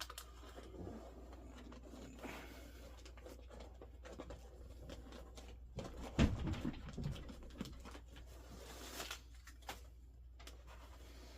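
Hands working on a seat and its stick-on heated-seat pad: rustling, crinkling and light clicks of handling, with a dull thump about six seconds in.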